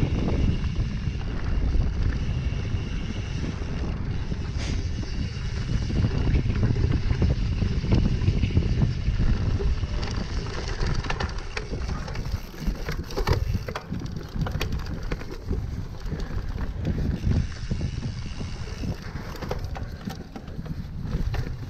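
Wind buffeting the microphone over the low rumble of a cyclocross bike's tyres on a dirt trail. Short rattling knocks come in the second half as the bike goes over rough, rutted ground.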